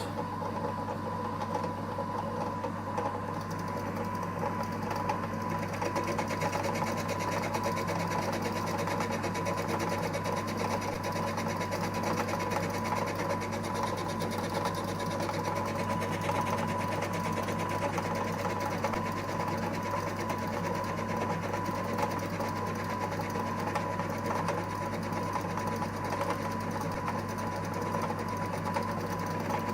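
EMCO Compact 5 lathe running steadily with its spindle turning, its motor and stepper-driven cross-slide giving an even whine as the tool feeds across the end of the workpiece in a facing cut.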